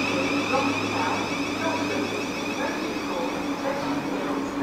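Thameslink Class 700 electric multiple unit pulling out of the platform, its electric drive giving a steady high whine over a low hum.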